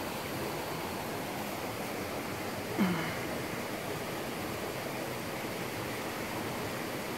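Steady rush of a fast, muddy river. About three seconds in, a brief sound falling in pitch stands out as the loudest moment.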